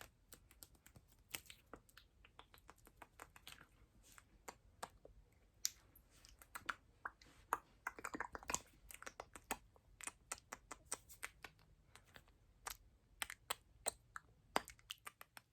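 Close-miked ASMR mouth sounds: quick, irregular wet clicks and smacks of the lips and tongue, with a short breathy hiss about eight seconds in.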